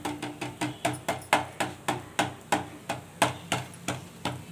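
Wooden spatula patting down a chapathi cooking on a tawa: quick, even wooden taps, about four a second.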